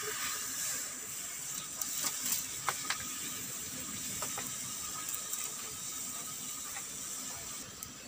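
Wood fire burning in a clay chulha under a kadai of heating water: a steady hiss with scattered sharp crackles and clicks.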